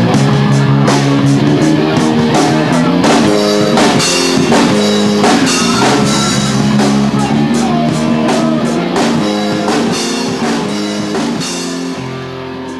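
Live rock band playing loud: guitar and drum kit, with regular drum and cymbal hits. Near the end the drums stop and the final chord rings out and fades.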